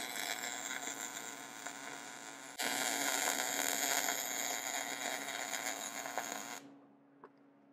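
MIG welding arc from a Lincoln Power MIG welder crackling steadily while tack-welding a steel motor mount bracket to the Jeep frame. It breaks briefly and restarts louder about two and a half seconds in, then cuts off suddenly about six and a half seconds in.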